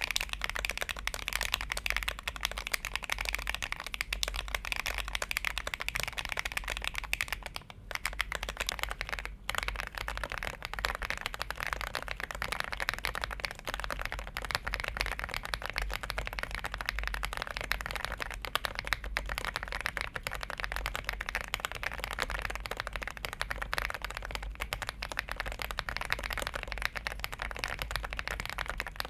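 Fast, continuous typing on a mechanical keyboard, a dense run of key clacks with a couple of brief pauses about eight and nine seconds in.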